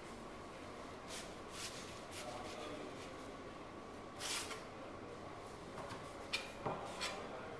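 Dry tobacco leaf rustling and crinkling under the hands of a cigar roller at his bench, a few soft swishes with a longer one midway, then three short sharp taps near the end.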